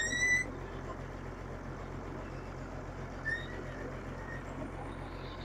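Engine of a truck-mounted tube-well boring rig running steadily with an even low throb while it drills. A short, high, slightly rising squeak comes right at the start, and a fainter one about three seconds in.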